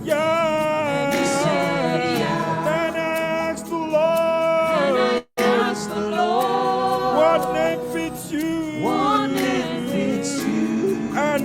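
Worship singers holding long gospel-style notes with vibrato. The sound drops out completely for a split second about five seconds in.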